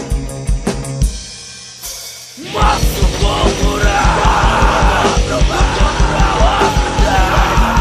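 Hardcore punk recording: a drum beat, a short quieter lull about a second in, then about two and a half seconds in the full band comes in with fast, steady drumming and shouted vocals.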